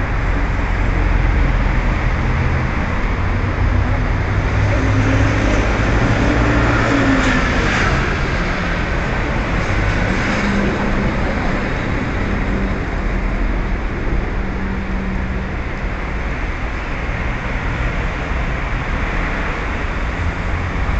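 Road traffic: engines of passing vehicles in a steady rumble, one engine note rising and falling about five to eight seconds in.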